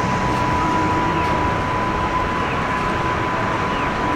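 Kumamoto City tram running along its street tracks: a steady rumble under a constant high tone.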